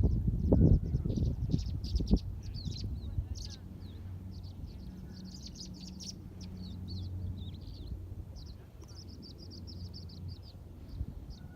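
Small songbirds chirping: a steady stream of short, high-pitched chirps and quick trills. Low rumbling knocks are loudest in the first two seconds.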